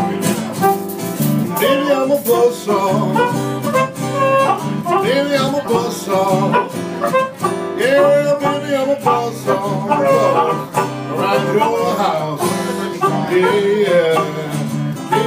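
Blues instrumental break: an acoustic-electric guitar strummed in a steady rhythm while a harmonica plays the lead, its notes bending and sliding.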